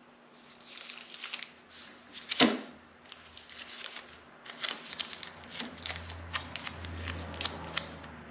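Blue painter's tape being peeled and torn and pressed down over a paper template, with crackling paper rustle. One sharp snap comes about two and a half seconds in, and a quick run of crackles and ticks fills the second half.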